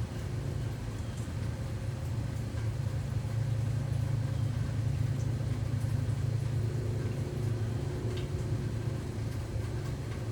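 A steady low rumble, with a few faint short ticks over it.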